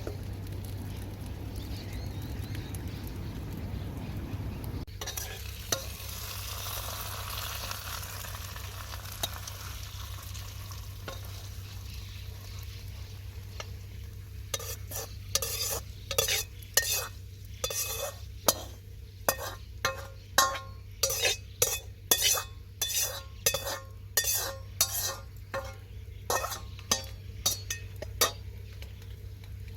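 Stir-fry sizzling in a Chinese wok; the sizzle grows brighter about five seconds in. From about halfway a spatula scrapes and knocks against the wok, about two strokes a second, as the food is tossed.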